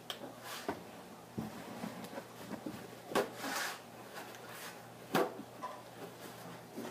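Scattered knocks and light scraping of a hand cleaning tool working on a grill, with two short, louder hits about three and five seconds in.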